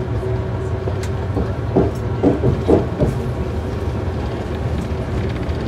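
Passenger train running, heard from inside the carriage: a steady low rumble, with a short run of wheel clacks on the rails about two seconds in.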